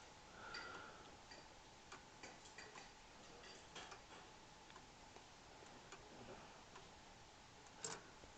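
Sligh triple-chime pendulum clock ticking faintly, with a sharper click near the end.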